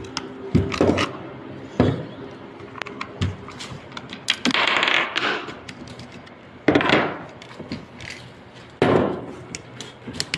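Parts of an airsoft SVD Dragunov rifle being handled during disassembly: scattered light clicks with several louder knocks, some followed by a short scrape, the longest about five seconds in.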